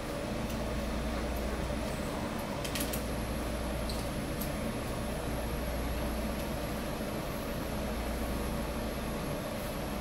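Steady background hum and hiss of the room, with a thin high whine, and a few faint clicks about three seconds in.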